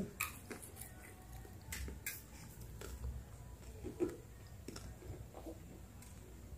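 Faint scattered clicks and rustles of a cupcake being handled in its paper liner and chewed.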